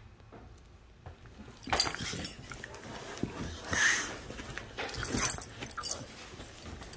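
Dog making a few short sounds close by, in clusters about two, four and five seconds in, after a quiet start.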